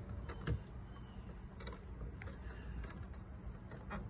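Boat livewell pump running, very quiet: a faint, steady low hum, with a soft knock about half a second in.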